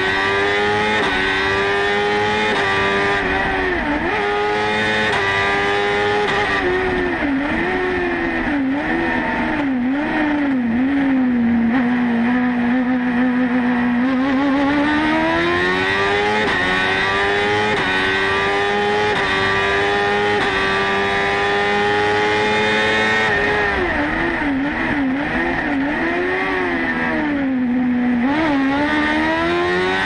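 BMW S1000RR inline-four superbike engine in a Fiat 500 hillclimb prototype, heard from inside the cockpit, running at high revs under hard acceleration. The pitch drops and rises in quick clusters as the car shifts gears and slows for bends. About halfway through it sits low for a few seconds, then climbs steadily again.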